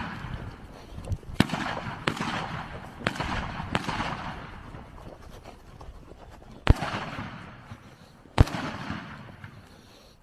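Rifle shots fired one at a time, about six of them at uneven intervals, each followed by a short echo. The last two, in the second half, are the loudest.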